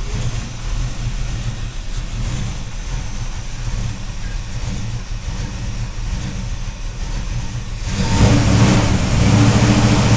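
1968 Chevrolet El Camino's V8, on headers and Flowmaster exhaust, idling steadily. About eight seconds in it is revved at the carburettor, and the engine note rises and gets much louder.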